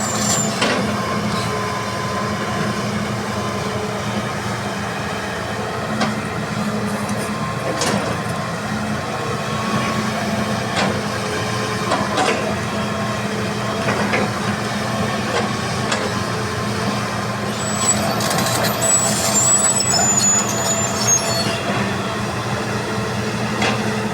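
Heavy diesel earthmoving machinery, an excavator working beside a dump truck, running steadily, with scattered knocks and clanks and brief high-pitched squeals near the end.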